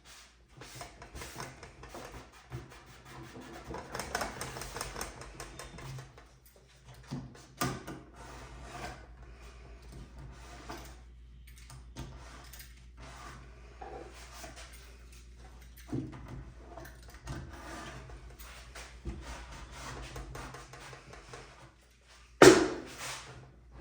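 Glue squeeze-out being wiped and scraped off a clamped wooden drawer box: irregular rubbing and small clicks and knocks against the wood and clamps, with one loud knock near the end.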